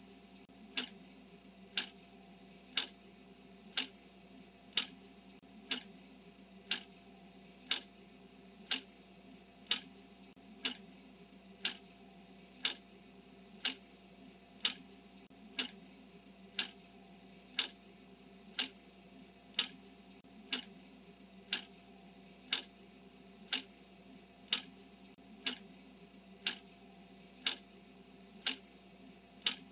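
Clock ticking steadily, one sharp tick a second, keeping time with a countdown timer, over a faint low hum.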